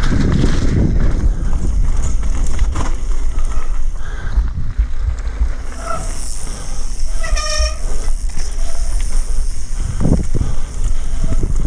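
Mountain bike descending a loose gravel and dirt trail at speed: a steady rumble of wind buffeting the camera microphone, with tyres crunching over stones and the bike rattling over bumps. A brief pitched hoot sounds about seven seconds in.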